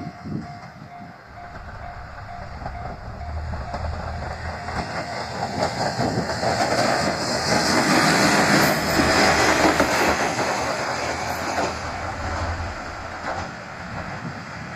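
A diesel railcar passes through a level crossing: its engine hum and wheel noise build to loudest about eight to ten seconds in, with wheels clacking over the rail joints, then ease off. Near the start, the crossing bell is still dinging in a steady repeated tone.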